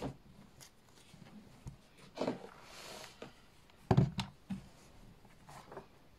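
Fabric rustling and soft knocks as a hoodie is smoothed and spread out on a padded ironing board by hand, with a louder thump about four seconds in.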